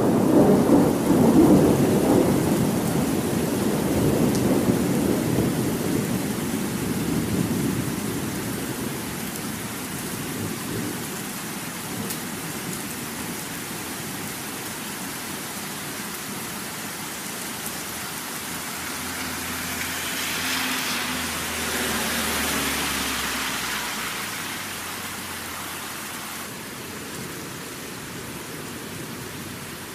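Thunderstorm: steady rain falling while thunder rumbles. A long low roll at the start dies away over several seconds, leaving the even hiss of the rain, and a softer rumble swells and fades about two-thirds of the way through.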